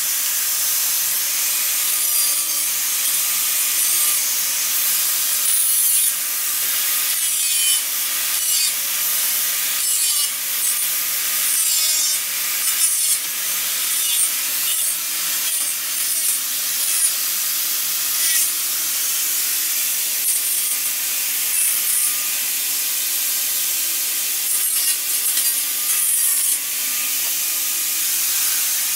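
Electric angle grinder running without a break, its disc cutting through the metal hog rings that clamp the upholstery to a car seat's spring frame, a steady high hiss of metal being ground.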